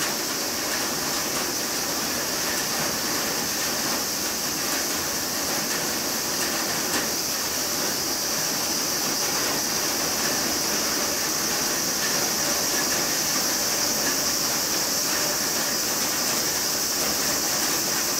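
A steady high-pitched hiss that runs on evenly without a break.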